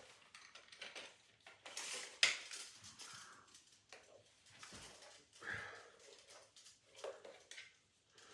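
Plastic parts of a solar path light being handled and fitted together: scattered clicks, light clatters and rustles, the sharpest click about two seconds in.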